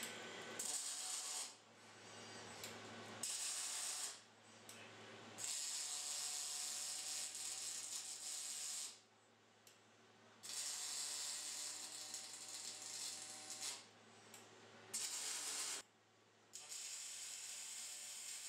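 Robotic arc welding: the welding arc crackles and hisses in about six welds of one to three seconds each, switching on and off sharply, over a steady low electrical hum.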